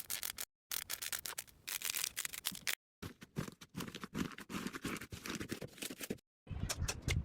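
Slime being handled by hand, a dense run of crackling clicks and scratchy sounds, in short clips cut apart by brief moments of dead silence.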